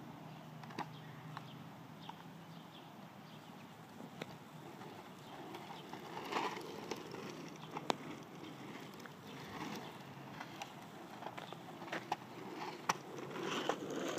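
Faint scattered clicks and light knocks of a casterboard's wheels and deck on asphalt, more frequent in the second half.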